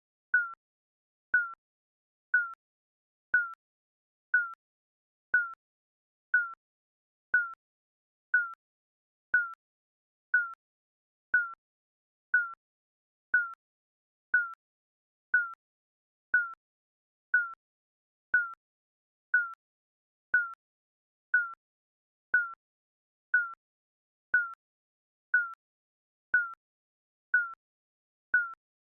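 Digital countdown timer beep: a short, single-pitched electronic blip repeating evenly once a second, marking each second ticked off.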